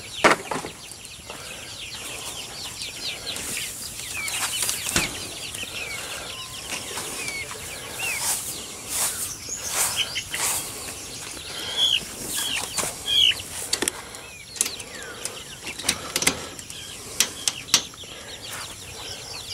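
Young chickens peeping and clucking, with many short high chirps throughout. Sharp knocks and rattles come and go, most around the middle and near the end, from the wire-mesh pen being handled.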